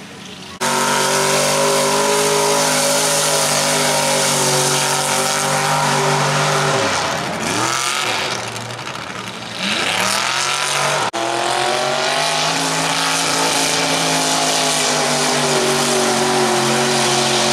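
An engine running at high, steady revs, easing off and revving back up twice in the middle. It starts abruptly, and briefly cuts out about eleven seconds in.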